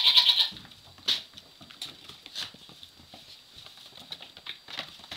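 A Nigerian Dwarf goat kid bleats, high-pitched and quavering, stopping about half a second in. Then come scattered light taps and rustles of small hooves skipping over a straw- and leaf-strewn dirt floor.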